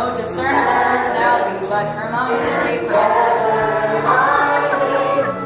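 A stage cast singing together as an ensemble over live band accompaniment, with long held sung notes in a musical-theatre number.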